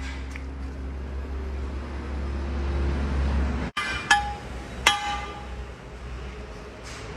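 Three sharp metallic clinks of a hammer striking steel, the last two ringing on briefly, after a steady low rumble that cuts off suddenly just before them.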